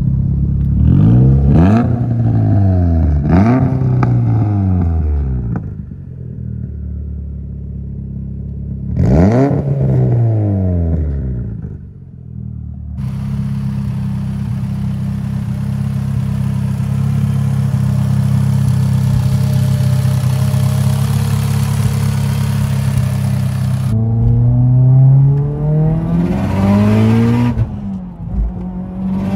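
Mitsubishi Lancer Evolution X's turbocharged four-cylinder, fitted with an Invidia N1 cat-back exhaust and an ETS 6266 Gen 2 turbo. It is given a few quick free revs from idle, then another about nine seconds in, then settles into a steady idle with a hiss over it. Near the end it pulls hard under acceleration, the pitch climbing, dropping at a gear change and climbing again.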